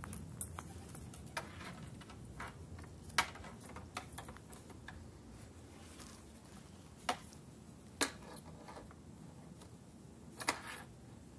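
A leather strap and its metal buckle handled while a lace is tied to a leather quiver: quiet rustling of leather with scattered sharp clicks and clinks of metal, a few of them louder than the rest.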